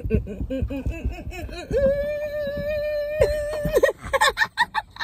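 A woman's wordless gospel-style 'shout' vocalizing: quick short sung syllables, then one long high note held for about two seconds, breaking into laughter near the end.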